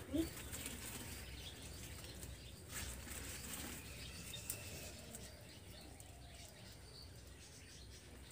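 Faint rustling with a few sharp clicks as a wood- or straw-fired clay stove (unun) is being lit, with a bird calling faintly in the background.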